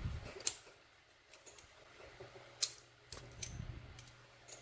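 A few sharp, scattered metallic clicks and taps from a small padlock and lock-picking tools being handled.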